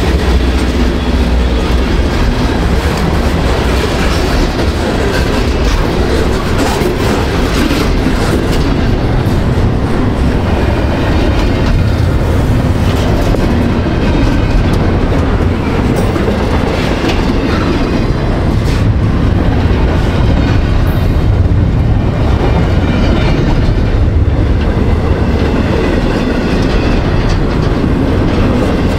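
A freight train rolling past close by: a loud, steady rumble of railcars on the rails, with wheel clicks over the rail joints.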